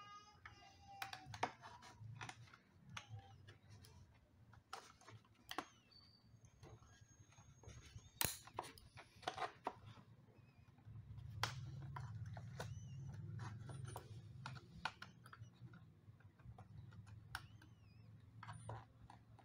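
Scattered small clicks and taps of hands working an SSD into the drive bay of an opened iMac A1418, plastic and metal parts knocking as it is pushed into place. A low hum swells about eleven seconds in.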